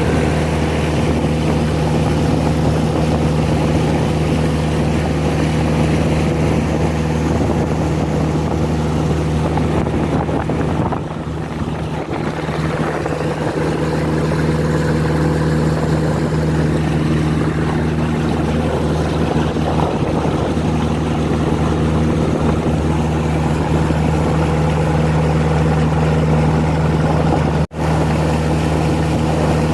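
Toyota Kijang 4K inline-four car engine driving a klotok boat underway, a steady even-pitched drone over the rush of water. The sound cuts out for an instant near the end.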